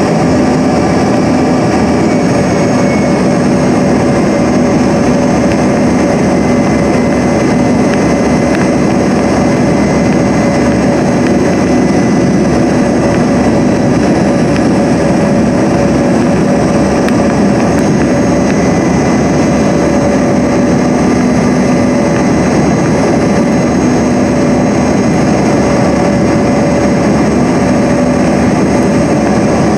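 Steady cabin noise inside a Bombardier CRJ-200 regional jet descending on approach: the rush of airflow and the hum of its two rear-mounted General Electric CF34 turbofans, with a few steady tones running through it.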